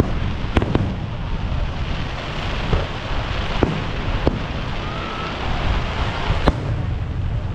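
Fireworks shells bursting: about half a dozen sharp, irregularly spaced bangs over a steady low rush of noise.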